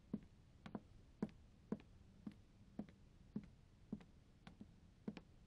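Faint footsteps of a woman in heeled shoes walking on a hard floor: short, sharp clicks at an even walking pace, about two steps a second.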